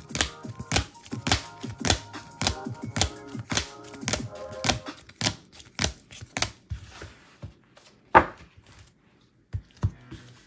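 Quick clicking and tapping of trading cards and hard plastic card holders being handled on a table, about two clicks a second, thinning out after about six seconds, with one louder knock about eight seconds in. Soft background music underneath for the first half.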